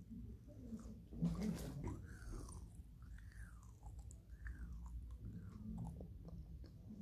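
Someone chewing a mouthful of soft marshmallow Peep candy close to the microphone, with a brief louder sound about a second and a half in.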